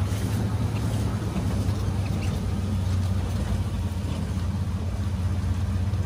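Steady low drone of a vehicle running, heard from on board, with a light rush of noise over it.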